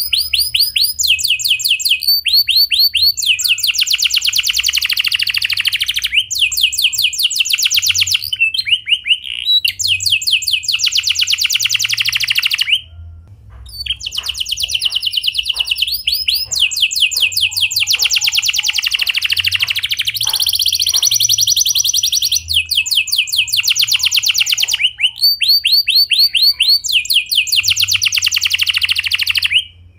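Domestic canary singing a long, loud, continuous song of fast rolling trills, each a rapid run of repeated notes, with a brief pause about thirteen seconds in.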